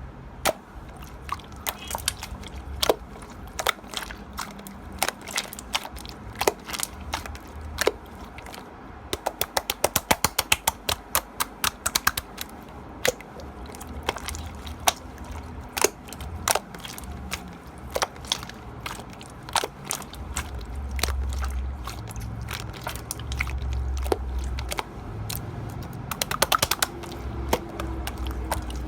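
Slime being squished and pressed by hand, giving a string of sharp clicks that at times come in quick runs of several a second.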